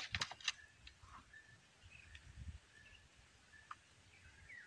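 Faint bird calls: a few short single whistled notes spread out, and a falling chirp near the end. A quick run of sharp clicks comes right at the start and is the loudest sound.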